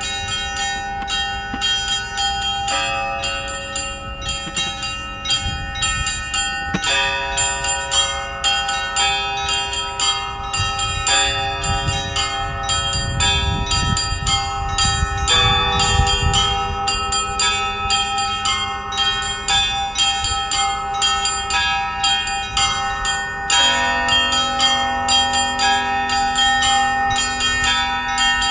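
Russian Orthodox church bells in a festive peal: smaller bells struck in a quick, dense rhythm over the lingering tones of larger bells, with a deeper bell tone coming in near the end.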